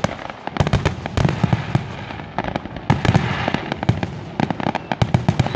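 Fireworks display: aerial shells bursting, many sharp bangs in quick, irregular succession.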